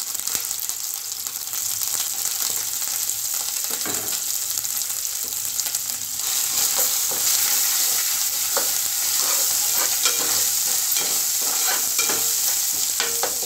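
Hot oil sizzling in a steel pot of tempering (mustard and cumin seeds, curry leaves, ginger paste) as turmeric powder is stirred in with a steel spoon, which scrapes and taps against the pot. The sizzle grows louder about six seconds in.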